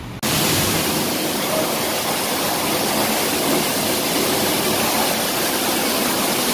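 Hot-water spray wand hissing steadily as its jet is sprayed into a car's engine bay, starting abruptly just after the start.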